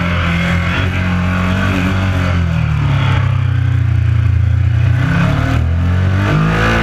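Ducati 1199 Panigale's V-twin engine heard from on board, its pitch falling as the bike slows in second gear, then rising again about five seconds in as the throttle opens and it accelerates.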